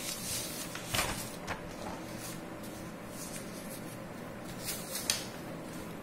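Paper notes being handled and a page turned: a few short rustles and brushes, a cluster about a second in and two more near the end, over faint room hum.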